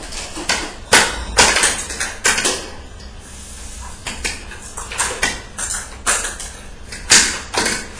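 Plastic toy hammer banged on the floor by a baby: an irregular run of sharp knocks, pausing briefly about three seconds in.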